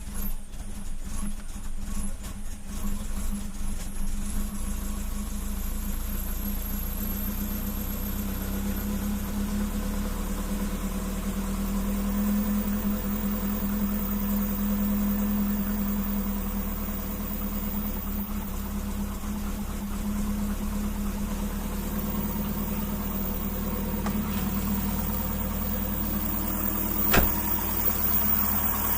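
Turbocharged Subaru Forester's flat-four boxer engine idling, running rough; the owner puts the poor running down to the brake booster hose. A single sharp click near the end.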